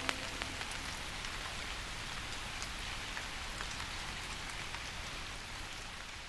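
Steady rain falling, an even hiss with many small scattered drop ticks, fading away near the end.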